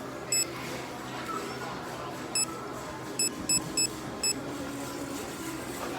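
Self-checkout payment terminal beeping: six short, high electronic beeps, one about a third of a second in, then five in a quick irregular run between two and four and a half seconds in, as keys are pressed during card payment.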